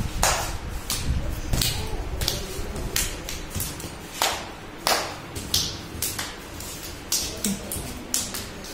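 Small children's hand claps, uneven and loose, about one or two a second, keeping time for a Punjabi gidda dance.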